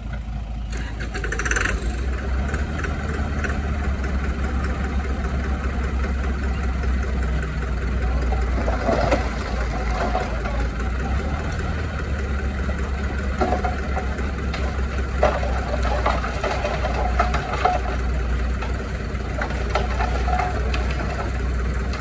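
Diesel engine of heavy earthmoving machinery running steadily with a deep low rumble, with scattered short metallic knocks and clanks over it in the second half.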